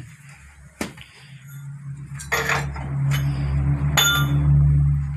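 Sharp metal knocks and clinks of steel parts and tools against a truck's steel chassis frame during riveting work, one clink around four seconds in ringing briefly. A steady low machine hum swells in the background from about halfway.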